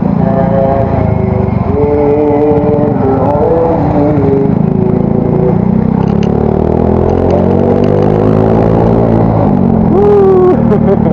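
Yamaha Mio Soul GT scooter running on the road through its modified, drilled-out exhaust, a deep bassy note. From about six seconds in the engine note climbs steadily as it accelerates.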